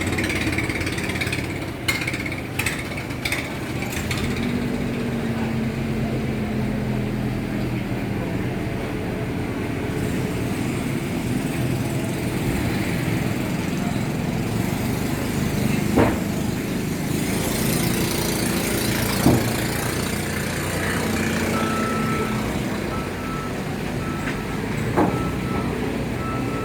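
A steady engine running, with voices in the background. A few sharp clicks come early on, and a short high beeping repeats several times near the end.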